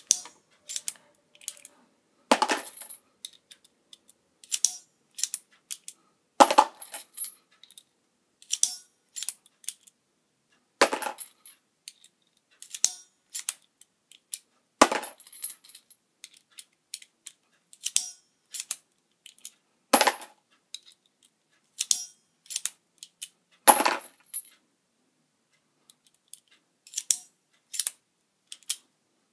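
RCBS hand priming tool seating CCI 500 primers into 7.62x25mm Tokarev brass cases: a run of small metallic clicks and clinks as cases go in and out of the shell holder and the handle is squeezed, with a louder sharp clack roughly every four seconds, one per case.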